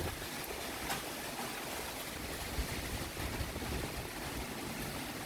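Thunderstorm wind and driving rain: a steady rushing noise.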